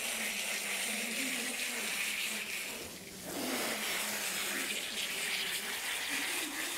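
Garden hose spray nozzle running steadily, water spraying and splashing through a pony's soapy tail as it is rinsed; the spray falls away briefly about three seconds in, then comes back.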